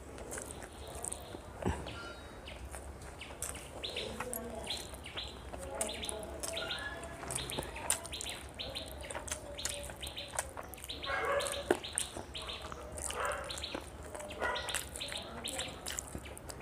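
Close chewing and wet eating sounds of rice and chicken eaten by hand, with a few sharp clicks. Small birds chirp repeatedly in the background.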